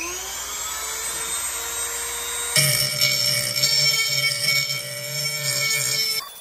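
Dremel rotary tool spinning up with a rising whine that settles to a steady pitch, then its grinding stone bites into the edge of a rusty steel mower blade, adding a louder, harsher grinding rasp as sparks fly. The grinding cuts off sharply near the end.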